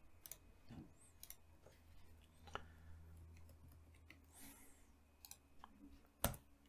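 Faint, scattered clicks of a computer keyboard and mouse, with one sharper click near the end.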